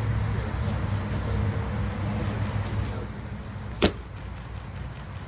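Steady outdoor background noise with a low hum, broken by one sharp crack near the end, while a fireworks mortar set in a watermelon is waiting to go off.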